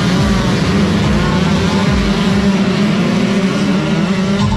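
Motocross bike engines running hard at high revs, one rising in pitch near the end.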